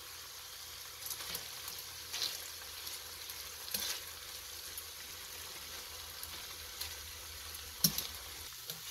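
Chicken strips frying in butter and oil in an enamelled cast-iron pot, a steady sizzle, with a few sharp clicks of metal tongs against the pot as the pieces are turned.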